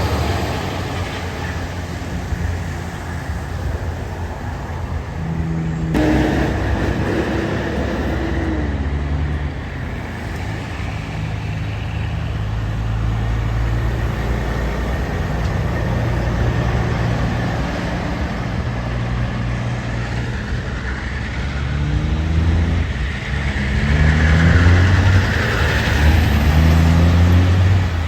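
Heavy trucks' diesel engines running as they pull past, with one engine's pitch rising and falling in repeated steps near the end as it works up through its gears.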